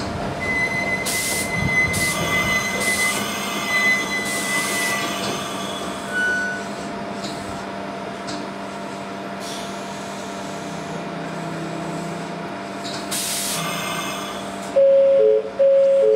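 A Konan Railway Owani Line electric train running, with a steady high wheel squeal for the first five seconds or so and several short bursts of hiss. Near the end comes a loud two-note chime, falling in pitch.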